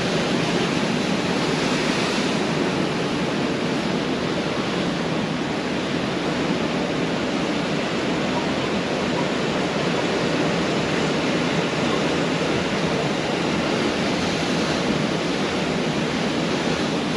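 Pacific Ocean surf breaking and washing on a beach: a continuous, steady roar of waves, swelling slightly about two seconds in and again near the end.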